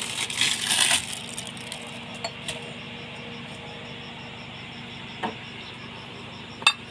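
Metal parts clinking and rattling as a radiator is fitted to a mini excavator's engine: a burst of clattering in the first second, then a few scattered clicks, with one sharp click near the end.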